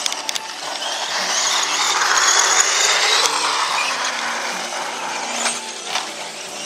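4WD electric radio-controlled buggy driving on a dirt track, its motor and gears whirring, growing louder to a peak a couple of seconds in and then fading as it moves away.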